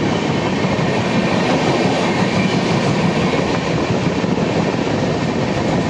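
Express passenger train running at speed: a steady, loud rumble of its wheels on the track.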